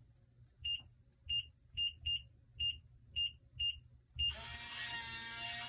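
Kwikset 888 electronic deadbolt keypad giving a short high beep for each key press, about eight in a row as a code is entered, then the lock's motor whirring steadily as it drives the deadbolt after the code is accepted.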